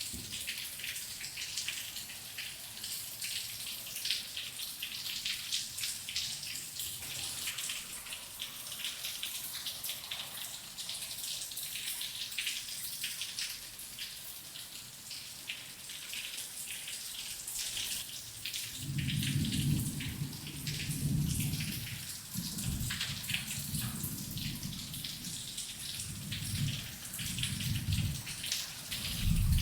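Rain falling steadily, a dense patter of individual drops striking a surface. From about two-thirds of the way through, low thunder rumbles in several swells beneath it.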